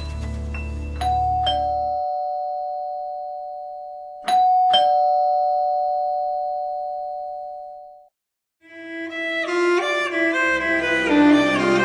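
Doorbell chiming 'ding-dong' twice, about three seconds apart; each two-note chime rings on and fades, and the second is cut off suddenly. Soft background music fades out under the first chime, and string music comes in near the end.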